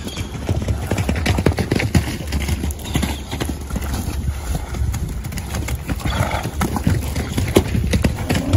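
Horses' hooves thudding and scuffing on damp dirt as the herd trots and plays, many irregular hoofbeats. There are brief horse calls about six seconds in and again at the very end.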